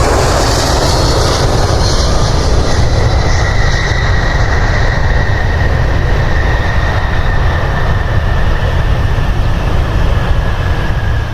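Jet airliner engines running loud and steady as the plane goes by, with a thin high whine that slowly drops in pitch.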